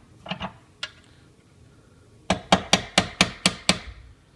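A mallet tapping a 17 mm socket to press the new ring down onto a Land Rover air-suspension compressor piston. There are a few light taps in the first second, then a quick run of about eight sharp knocks just past the halfway point.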